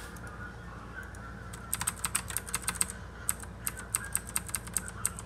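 Typing on a backlit computer keyboard: a quick, irregular run of key clicks starting about a second and a half in.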